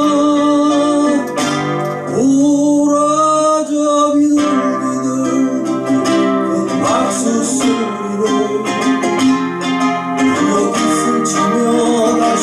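A man singing with long held notes, accompanying himself on a nylon-string classical guitar.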